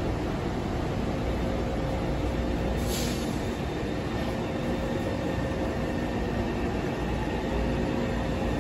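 Taipei Metro train standing at an underground platform, giving a steady rumble and hum. A short hiss of air comes about three seconds in.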